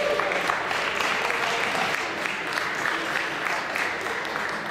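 Audience applauding, the clapping slowly fading.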